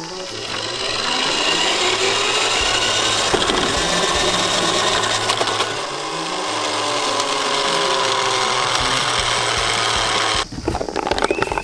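Small toy vehicle motor and gears whirring, the pitch rising steadily as it speeds up. It dips about six seconds in, rises again, and cuts off abruptly near the end.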